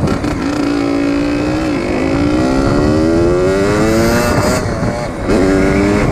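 Dirt bike engine revving as it accelerates, its pitch climbing steadily for a few seconds. The pitch drops sharply about five seconds in, then climbs again. Wind noise on the microphone runs underneath.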